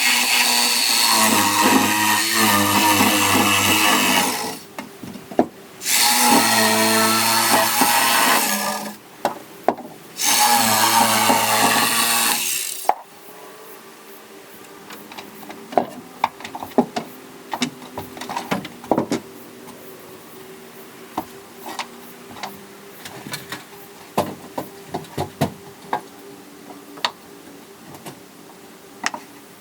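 Power saw cutting wood in three cuts of a few seconds each, the motor running steadily through each cut. After the third cut it stops, leaving a faint steady hum with scattered light taps and clicks.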